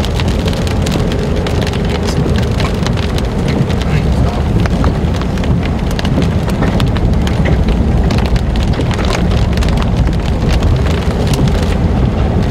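Hail and rain pelting a moving vehicle's roof and windshield: a dense, irregular clatter of sharp impacts over the steady low rumble of tyres on a wet road.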